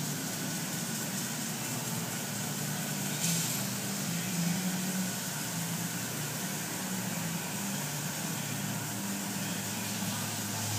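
A steady low mechanical hum over a constant background hiss, with a brief louder hiss about three seconds in.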